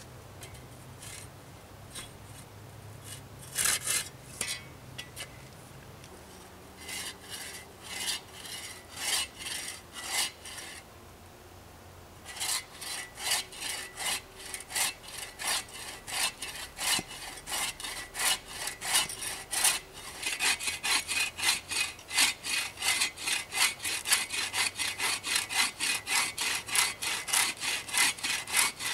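Hand saw cutting through a wooden branch. A few short bouts of strokes come first, then steady back-and-forth sawing from about halfway, around two strokes a second and quickening near the end.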